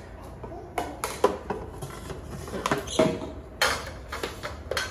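Cooking pots clinking and knocking, several short sharp knocks spread through, as leftover macaroni is tipped from one nonstick pot into an electric pressure cooker's inner pot.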